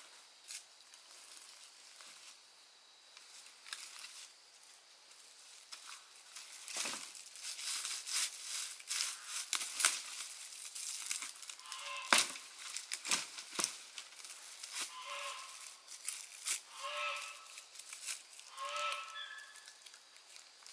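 A farm animal gives several short calls in the second half, over a run of sharp crackles and snaps like dry twigs and leaves being handled.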